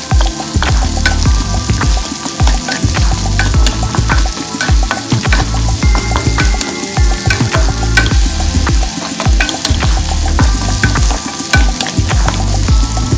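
Squash cubes sizzling in a hot metal pan as a wooden spatula stirs and scrapes them, with repeated short strokes. Background music plays underneath.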